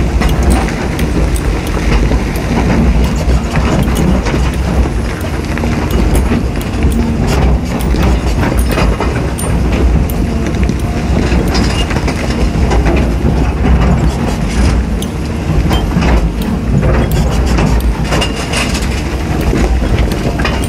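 Caterpillar 320D excavator at work: its diesel engine running steadily under load, with frequent knocks and clatter as the bucket digs into rock and soil.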